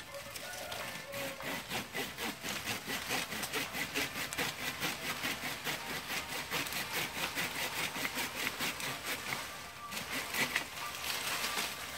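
Small hand pruning saw cutting through a woody green tea bush stem in fast, even back-and-forth strokes, with a short pause near the end before a few more strokes.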